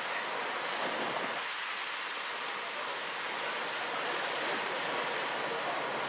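Steady rushing hiss of sea water running along the hull of a moving boat.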